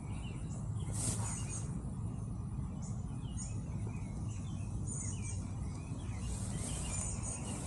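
Birds chirping in short scattered calls over a steady low background hum.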